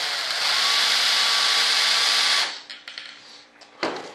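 Cordless drill running at speed, boring a hinge hole into the edge of a model jet's flap; its pitch dips briefly just after the start, then it stops about two and a half seconds in. A few light clicks and one sharp knock follow near the end.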